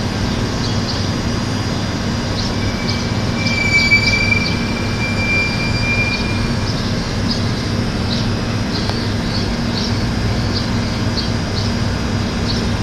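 Steady low background hum and rumble, with a thin high squeal held for about four seconds early on and faint short high chirps repeating about twice a second.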